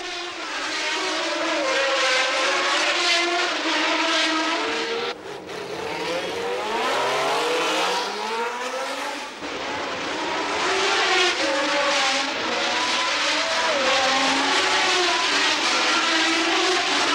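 1977 Formula One cars racing past one after another, the Cosworth V8 among 12-cylinder engines. The engines rev high and drop away with each gear change and corner. There is one long climb through the revs about seven seconds in.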